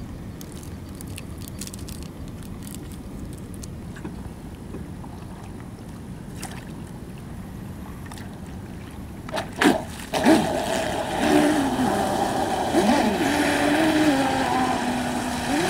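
Large-scale King of Shaves RC speedboat's 540 kV electric motor, running on a 10-cell LiPo, starting up about ten seconds in and whining at high speed, its pitch rising and falling with the throttle, over the hiss of spray. Before that there is only low steady background noise with a few light clicks.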